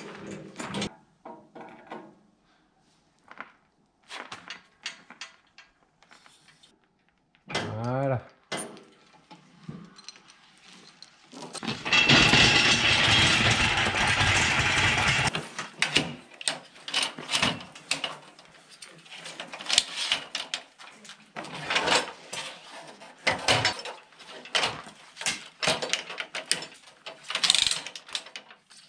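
Oak beams being handled with a hydraulic engine crane and chain sling: clanks, knocks and scrapes of chain and timber, with a short squeak rising in pitch about eight seconds in. A loud steady rushing noise lasts about three seconds midway, followed by a run of sharp knocks.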